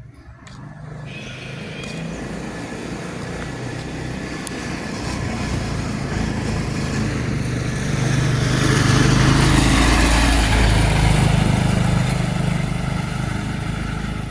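A motor vehicle passing close by: its engine noise builds over several seconds, is loudest about nine to eleven seconds in, then fades away.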